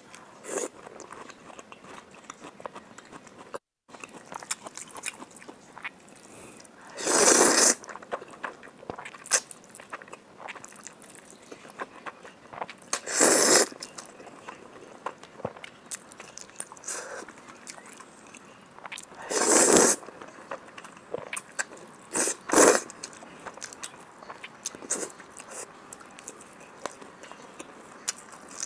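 Close-up eating sounds of a person chewing spicy instant noodles and canned yellow peach, with soft wet clicks of chewing throughout. Four loud slurps of noodles of under a second each break in, the last two a few seconds apart.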